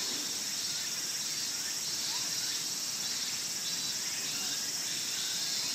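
Steady, high-pitched chorus of singing insects.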